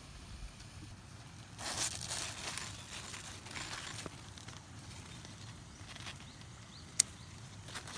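Cucumber leaves and vines rustling as they are pushed aside by hand, loudest about two seconds in. Near the end, a single sharp snip from hand pruning shears cutting a cucumber stem.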